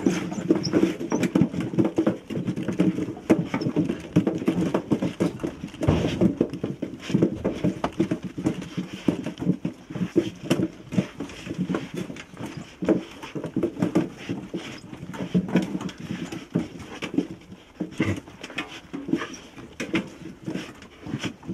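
A pack of African wild dogs eating dry dog biscuits from a metal feeding tray: a busy, continuous crunching and clattering of many mouths at once, with low, rough dog growls among them.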